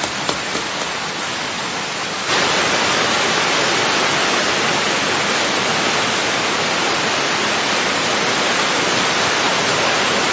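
Heavy rain pouring down in a steady hiss, which steps up louder about two seconds in.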